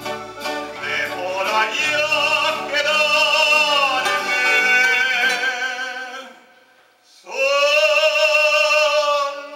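A male vocal trio singing together in long held notes with vibrato, over keyboard accompaniment. The voices break off briefly about six and a half seconds in, then come back in on a long held note.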